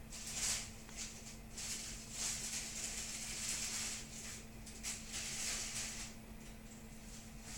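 A person smoking a cigarette: irregular breathy, faintly crackling hisses of drags and exhales, half a second to two seconds each. Under them runs the steady low hum of a kitchen exhaust fan.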